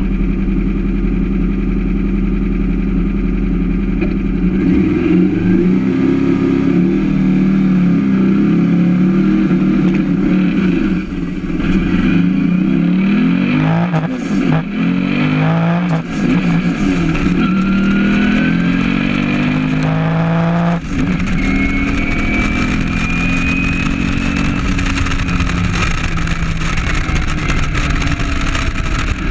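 Turbocharged 2332cc air-cooled VW flat-four running steadily on the start line, then launching about five seconds in and pulling hard down the drag strip in a full-throttle run. Its note climbs and drops back at several gear changes, with a high turbo whine. About twenty seconds in the throttle closes and the engine falls to a lower, steady note as the car coasts.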